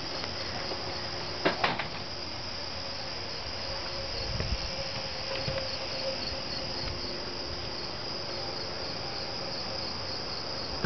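Chorus of singing insects: a steady, high, evenly pulsing trill, with a faint low hum underneath and a couple of sharp clicks about one and a half seconds in.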